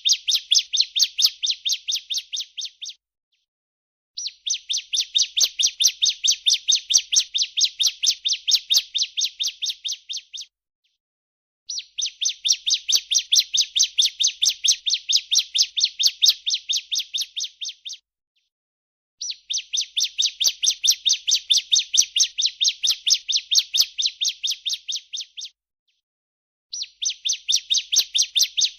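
Female bar-winged prinia (ciblek) giving its 'breeen' call: long bouts of rapid, evenly repeated high notes, each bout lasting about six seconds and tailing off slightly, with short pauses of about a second between them.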